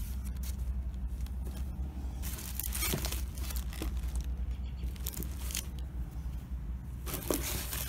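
Tissue paper and the plastic film of costume fairy wings crinkling and rustling as the wings are handled in their box, in a few short bursts with quieter gaps between.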